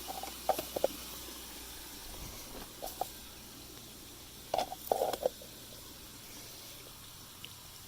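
Water running steadily into the pond and grow beds as the aquaponics system refills, with a few brief, sharper sounds about half a second in, around three seconds in and around five seconds in.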